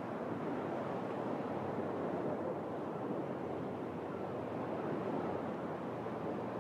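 Ocean surf: a steady, even rush of water noise with no single wave standing out.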